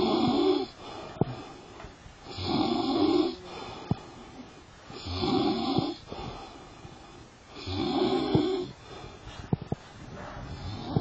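Snoring in a slow, even rhythm: four long snores about every two and a half to three seconds, with faint clicks between them.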